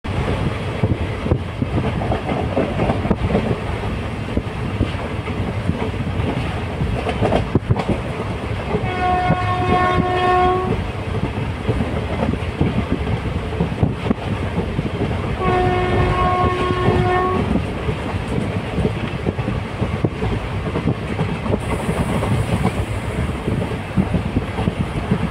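Train running along the track with a steady rumble and rattle. Its horn sounds two long blasts, one about nine seconds in and the other about six seconds later.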